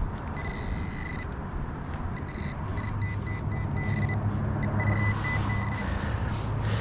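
Metal detector pinpointer beeping at one fixed pitch while it locates a buried target: a longer tone near the start, then quicker on-off beeps. A low steady hum runs underneath.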